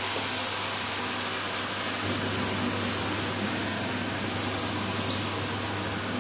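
Kitchen cooker hood extractor fan running with a steady hum and hiss, and a single click, the hood's control button being pressed, about five seconds in.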